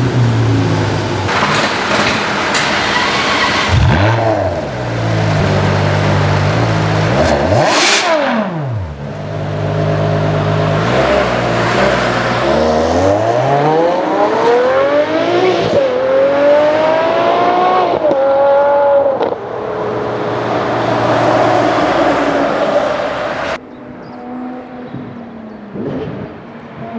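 Ferrari 599 GTO's V12 idling and revved hard at a standstill, with sharp blips around 4 and 8 seconds in. It then accelerates away with the pitch climbing through a gearchange and fades into a rush of noise. Near the end it is quieter, the engine heard again at lower level.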